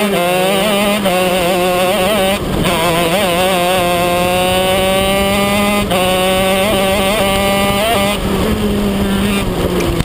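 Racing kart engine heard from on board at speed, its pitch wavering, then climbing steadily through a long acceleration and dropping off sharply about eight seconds in as the kart slows, over a steady low drone.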